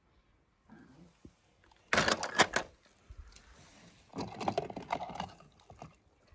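Small hard toy cars clicking and clattering against rocks, in two bursts of quick knocks: a short one about two seconds in and a longer one a couple of seconds later.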